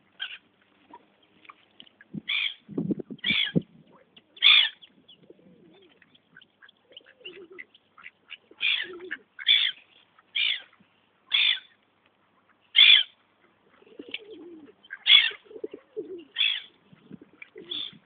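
Gulls calling repeatedly over water, short high cries coming about once a second, with softer, lower bird sounds beneath them.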